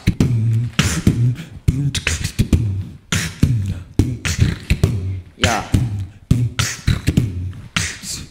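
Human beatboxing into a microphone, amplified through speakers: a steady hip-hop rhythm of vocal kick-drum thumps and snare-like clicks, with a few falling bass sweeps.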